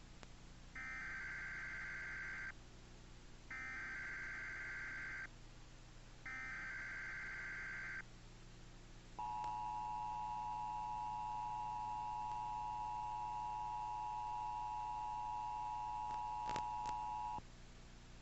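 Emergency Alert System activation: three bursts of SAME digital header data, each a shrill warbling tone about two seconds long, then the two-tone EAS attention signal held steady for about eight seconds before cutting off. A low mains hum runs underneath.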